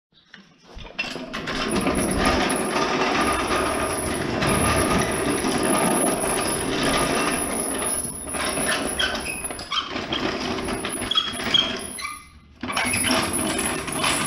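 Hydraulic floor jack's steel wheels rolling across a concrete floor as it is pulled by its handle, a steady clattering noise that stops briefly near the end.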